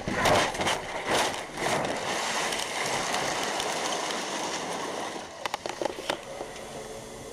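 Semi truck crashing, recorded from inside its cab: a run of heavy impacts and crunching in the first two seconds as the truck tips over, then a steady rushing, scraping noise for about three seconds. Near the end come scattered sharp clatters of falling debris and broken glass, and the noise dies down.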